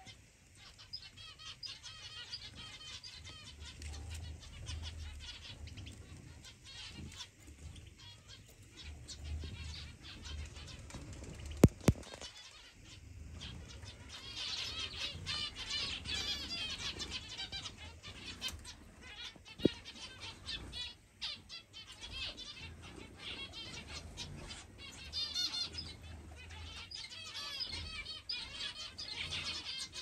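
Many small aviary birds, canaries and zebra finches among them, chirping and calling together in a dense, continuous chatter that grows busier about halfway through. Two sharp clicks stand out about twelve seconds in.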